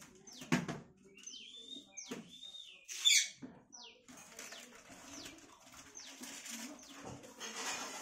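Rose-ringed parakeet calling: a string of short high whistled notes that curve and sweep downward, with one loud harsh squawk about three seconds in.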